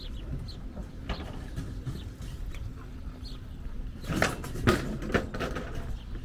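Outdoor background rumble with faint, short high chirps, and a brief run of sharp clattering knocks about four seconds in.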